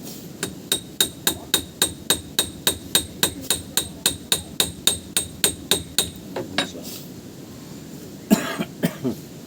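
A hammer tapping a screw on a boat engine in a fast even rhythm of about four light, metallic, ringing strikes a second for about six seconds. After a pause, a few louder knocks come near the end.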